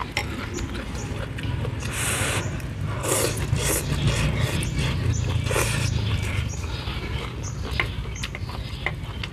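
A person slurping noodles and broth and chewing, with a few noisy slurps in the middle seconds and light clicks throughout.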